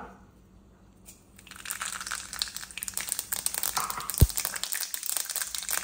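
Mustard seeds spluttering in hot coconut oil in a nonstick kadai: a dense patter of tiny pops and sizzle that starts about a second and a half in, the first stage of a tempering. One low thump about four seconds in.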